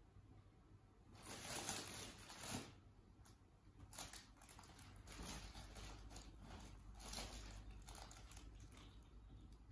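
A fabric cat play tunnel rustling and crinkling in a series of short bursts as a Maine Coon cat scrambles into it and moves through it, with soft patter of paws.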